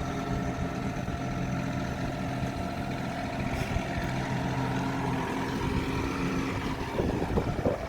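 An engine idling steadily, its sound falling off near the end.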